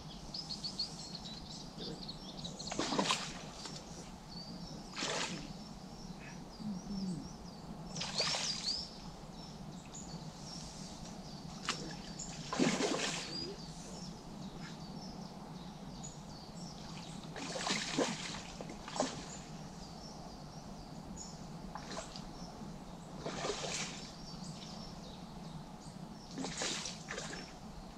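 A hooked tench splashing at the surface close to the bank as it is played, in irregular bursts every few seconds, with birds singing.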